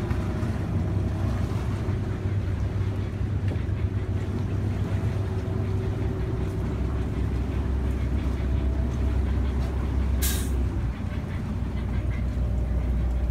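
Winton diesel engine of a classic motor yacht idling with a steady low rumble. About ten seconds in there is a short hiss, like a release of air, and the low rumble changes slightly just after it.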